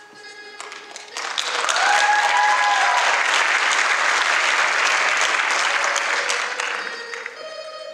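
Audience applauding in a theatre hall: the clapping swells about a second in, holds steady and loud, and dies away near the end.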